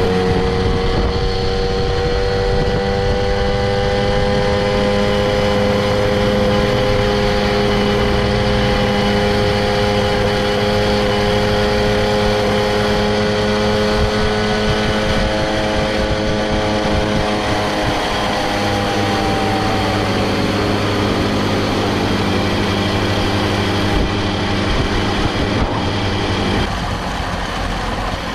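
Two-stroke moped engine running under way at a steady pitch, then easing off about two-thirds of the way through as the moped slows and runs on at low revs.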